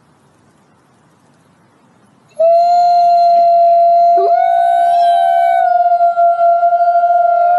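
Gray wolf howling: after a faint hiss, a long, steady held note starts suddenly about two and a half seconds in, with a short rising note joining it about four seconds in.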